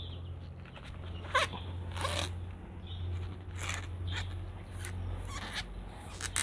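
Short, scratchy scrapes and crunches of fingers digging and working in coarse potting substrate around a palm offshoot and its thin plastic box, about a dozen at irregular intervals. Under them runs a steady low hum.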